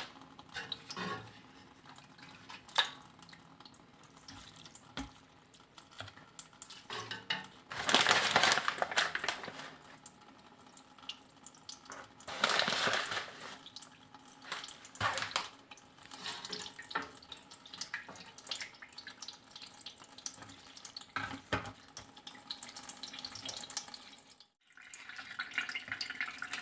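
Whey splashing and dripping as wet cheese curd is scooped and packed into draining molds, in two louder wet bursts of about two seconds each amid small clicks and drips.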